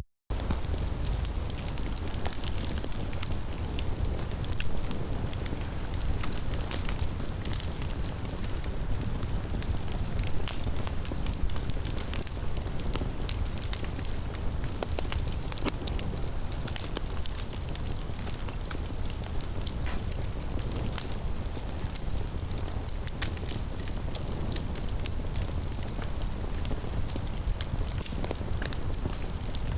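Fire burning: a steady low rumble of flames with frequent crackles and pops throughout.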